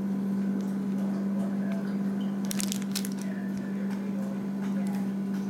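A steady low hum throughout, with a few brief crinkles of a cellophane bag being handled about two and a half to three seconds in.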